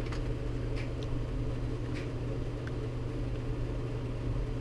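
Steady low mechanical hum, with a few faint clicks and crinkles of a clear plastic clamshell lure package being turned in the hands.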